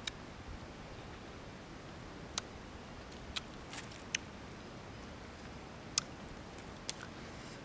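Eating sounds from grilled fish: about half a dozen sharp mouth clicks and smacks, spread unevenly, as the fish is chewed and picked apart by hand, over a steady background hiss.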